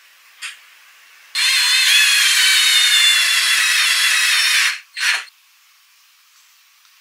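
Cordless drill boring an 8 mm dowel hole through a metal doweling jig into teak. The motor whine runs for about three seconds and sags a little in pitch as the bit cuts, then a short second burst follows.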